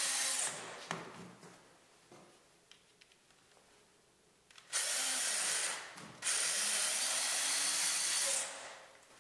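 Handheld power drill driving 2-inch bugle-head screws into a wooden panel box. A run at the start winds down, then a pause of a few seconds with a few small clicks. Two more steady runs follow, about one second and about two seconds long.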